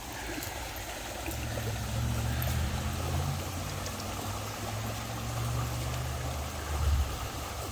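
Rain-swollen stream water rushing, flowing hard and running higher than usual, with a steady low rumble underneath.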